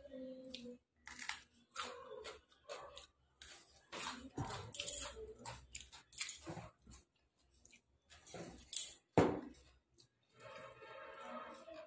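Close-up chewing and mouth noises: a run of crackles and clicks, with louder sharp sounds about four and nine seconds in.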